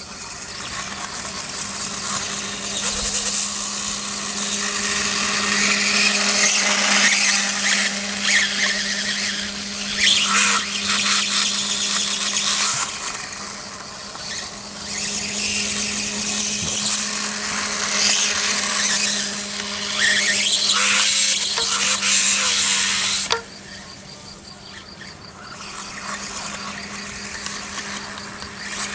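Electric motor and drivetrain of a Reely RC dirtbike whining as it is driven, swelling and fading with the throttle, with a sudden drop in level about 23 seconds in.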